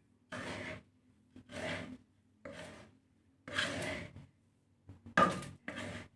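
A spatula scraping and stirring millet-and-seed bird feed as it is dry-roasted in a pan, one rasping stroke about every second. A sharper knock about five seconds in is the loudest sound.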